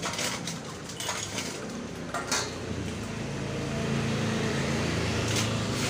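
Metal parts and tools clinking a few separate times against each other and the concrete floor. A low steady drone joins about halfway through.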